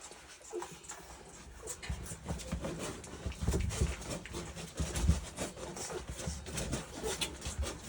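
Three-week-old North American Mastiff puppies whimpering as they nurse from their mother, with many small clicks and soft thumps throughout.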